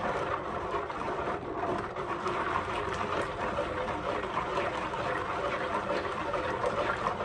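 Thick homemade soap mixture of used frying oil and caustic soda being stirred continuously with a plastic ladle in a plastic bowl, a steady swishing and scraping, as the batter is worked towards trace.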